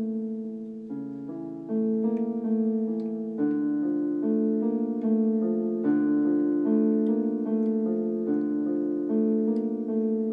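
Background music: an electric piano playing slow, sustained chords and a melody, the notes changing about once a second.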